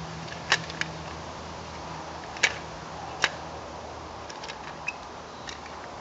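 Plastic clips of an Ei166RC smoke alarm's housing snapping into place as the cover is pressed back together, heard as about four sharp clicks in the first three and a half seconds, then a few faint ticks.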